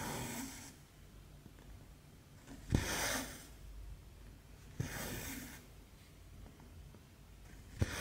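Cross-stitch needle popping through 11-count fabric with a sharp click, then the cotton thread pulled through with a short swish. This repeats about every two and a half seconds, three or four stitches in all.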